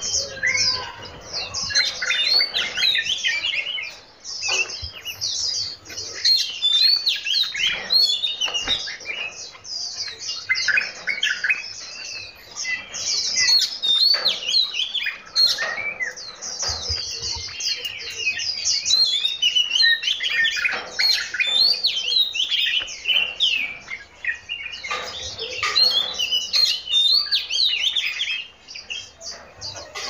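Several caged songbirds singing and chirping at once, a dense mix of overlapping whistles and chirps, with short lulls about four seconds in and again near the end.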